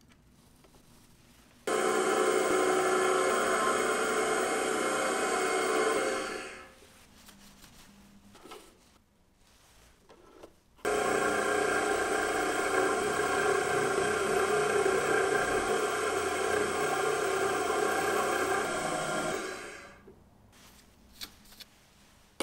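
Small milling machine's spindle switched on, running with a steady whine as a small end mill cuts a slot into a tiny brass block. It runs twice, for about five seconds and then about nine. Each run starts abruptly and winds down as the spindle is switched off.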